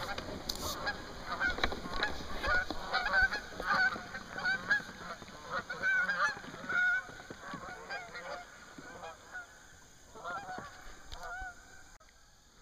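A flock of Canada geese honking as they take off and fly away, many overlapping calls that thin out and fade over the last few seconds.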